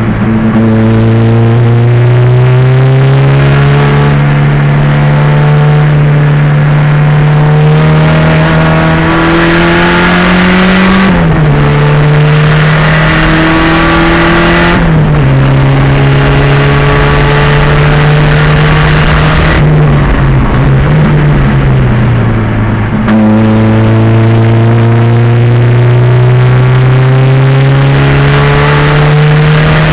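Turbocharged 2.0-litre engine of a 1987 Pontiac Fiero race car running hard at speed, its pitch climbing slowly and steadily over a long pull. It drops sharply twice in the first half as the revs fall away, wavers up and down for a few seconds, then climbs again through the last stretch.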